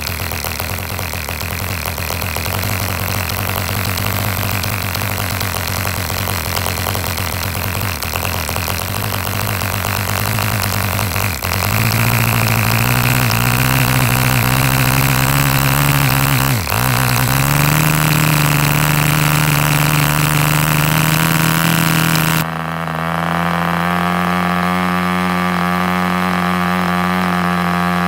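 Gotham Deezil model diesel engine, a tiny single-cylinder two-stroke compression-ignition engine, running fast on a test stand while its compression screw is worked by hand. Its note rises in steps, first about halfway through and again a few seconds later. Near the end the hiss drops away abruptly and it settles on a cleaner, steady note.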